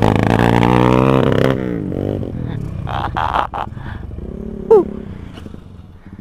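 Motorcycle engine revving hard, its pitch rising and falling, then easing off after about a second and a half as the bike slows. A few seconds later a short, loud squeal falls sharply in pitch, the loudest sound here.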